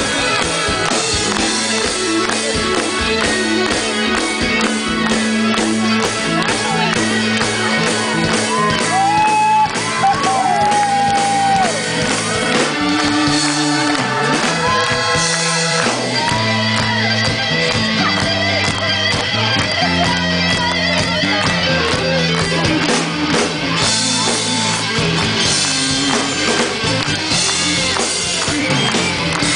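Live rock band playing amplified through a PA: electric bass, drum kit and keyboards in full swing, recorded from among the audience.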